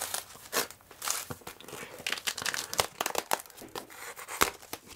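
Cardboard shipping carton being handled and opened by hand: irregular crinkling, rustling and tearing of cardboard and packing material, with a sharp click near the end.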